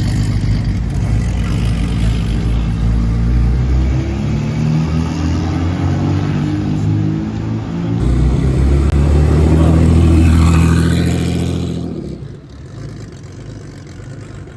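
Porsche sports car engine revving hard under acceleration, its pitch shifting up and down. It is loudest for a few seconds past the middle, then fades away about twelve seconds in.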